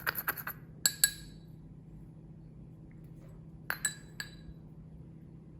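Glassware clinking as ingredients are added to a glass container: a quick cluster of small clinks at the start, two sharper ones about a second in, then three more a little before four seconds in, each with a short ring.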